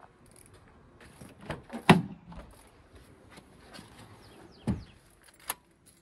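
A few separate knocks and clicks from tools and parts being handled at a car's battery terminal under the hood. The loudest knock comes about two seconds in, with another shortly before five seconds and a sharp click near the end.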